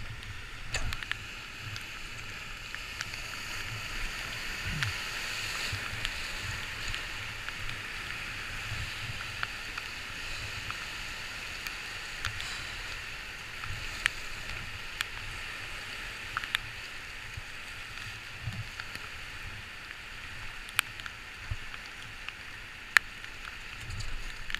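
Rushing river whitewater heard from a paddle raft: a steady hiss of rapids, with scattered sharp ticks and an irregular low rumble.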